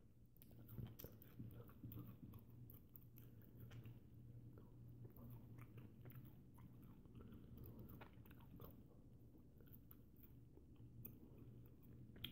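Faint wet chewing of a mouthful of banana eaten peel and all, with small irregular mouth clicks and smacks throughout, over a low steady hum.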